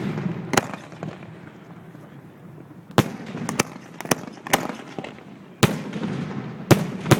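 A string of 2.5-inch aerial salute shells, flash-powder charges made only for noise, bursting: about nine sharp bangs at uneven intervals, some in quick succession, each trailed by echo.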